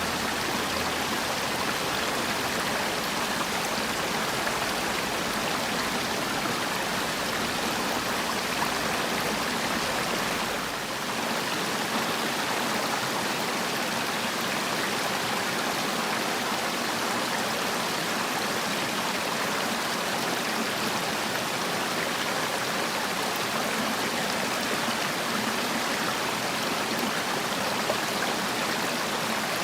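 Valley stream flowing: a steady, even rush of water, briefly a little quieter about eleven seconds in.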